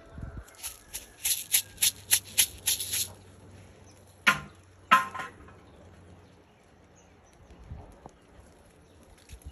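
Leaves brushing and rubbing against a handheld phone: a quick run of about nine sharp clicks over two seconds, then two louder ones about half a second apart.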